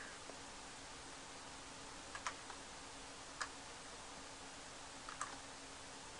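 A few sparse, short clicks from working at a computer, in pairs and singles a second or two apart, over a faint steady hiss and low hum.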